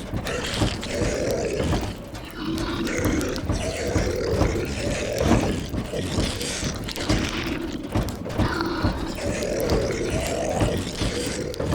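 Zombie moans and growls: low, guttural voices drawn out one after another, over a steady noisy hiss.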